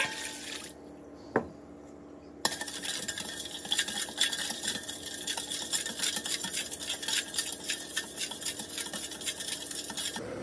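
Water poured briefly from a glass into a stainless steel bowl, a single knock, then a metal spoon stirring a soy-sauce marinade, clinking and scraping rapidly against the bowl for about eight seconds.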